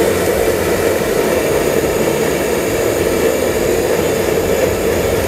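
Handheld gas torch on a butane canister running with its flame lit: a loud, steady hiss.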